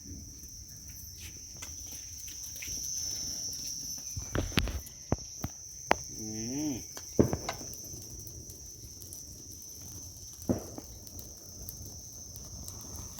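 Crickets trilling in a steady high-pitched chorus, with a few sharp pops and cracks from a bonfire that has just caught, clustered from about four to seven seconds in and again near ten and a half seconds.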